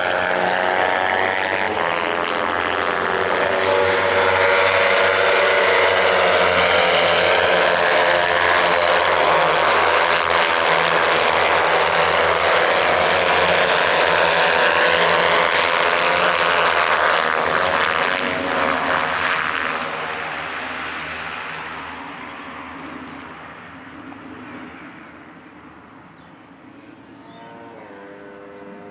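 A pack of Kawasaki 300-class racing motorcycles passing at high revs, several engines at once with pitches rising and falling. The engines fade away over the last ten seconds or so.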